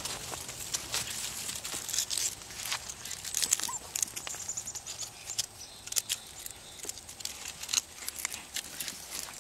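Dry oak leaves and twigs crackling and rustling under the paws of several Norrbottenspets puppies as they scramble and play, a busy stream of small sharp crackles with a few louder snaps.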